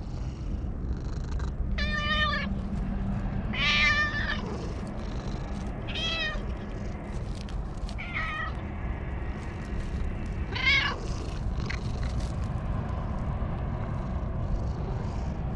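Domestic cat meowing five times while being stroked: short calls that rise and fall in pitch, about two seconds apart. They are the happy calls of a friendly cat enjoying the petting.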